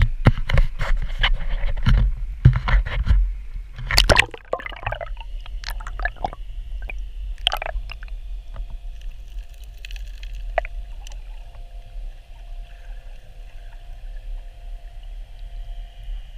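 Water splashing and knocking around the camera for the first four or five seconds as it goes under, then muffled underwater sound: a low rumble with faint steady tones.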